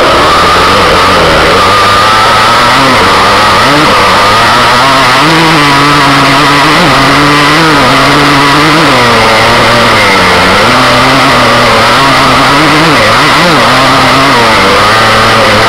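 Small off-road motorcycle engine heard close up from a camera mounted on the bike, revving up and down with the throttle as it rides a rough dirt trail. Very loud throughout, pushing the recording to its limit.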